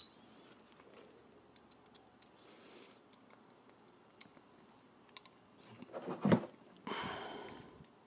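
Light metallic clicks of a Charter Arms Bulldog revolver's stainless frame and crane being handled and fitted together, scattered and irregular, with a louder rustle about six seconds in.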